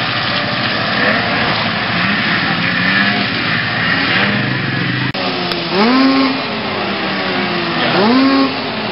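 Snowmobile engines running, with voices in the crowd. About five seconds in the sound changes abruptly, and a small engine revs sharply up and back down twice.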